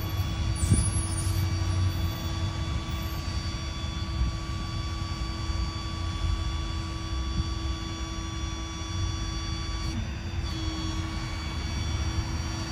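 Rollback tow truck's winch running with a steady whine over the truck's engine rumble as it pulls a wrecked SUV up the tilted bed. The whine cuts out briefly about ten seconds in, then resumes.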